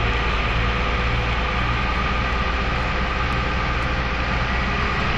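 Cummins diesel engines of a Texoma Taurus drilling rig running with a steady, smooth drone.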